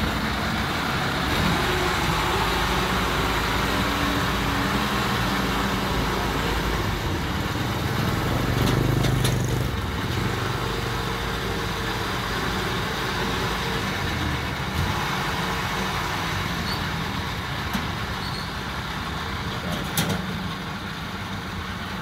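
Engine of a tracked crawler carrier running steadily as it reverses down onto a steel ferry. It swells for a moment about eight seconds in, and there is a sharp knock near the end.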